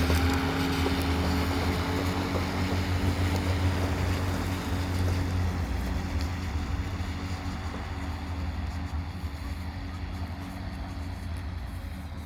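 Ego LM2100 battery-electric lawn mower running while cutting grass, its motor and blade humming at a steady pitch and slowly growing fainter.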